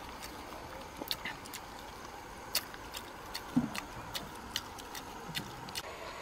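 Dogs eating peeled boiled eggs from a wicker basket: irregular sharp clicks and ticks of jaws and eggs knocking together, with two brief deeper mouth sounds, about three and a half and five and a half seconds in.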